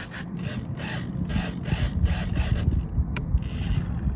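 Hobby servos in an RC plane whirring in short repeated bursts, about four a second, as the control surfaces are driven back and forth under manual control. A sharp click comes a little after three seconds.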